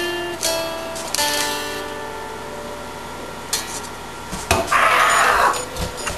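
Background music of plucked guitar-like strings, whose notes fade out after about two seconds. About three-quarters of the way through, a loud hiss lasts just under a second.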